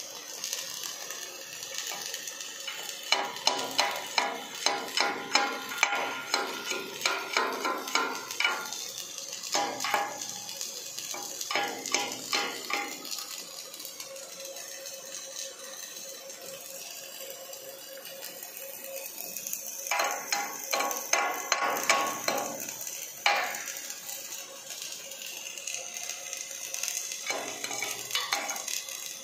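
Robotic MIG/MAG welding arc on steel, sizzling and crackling, with two spells of dense sharp ticks as the wire arc spatters.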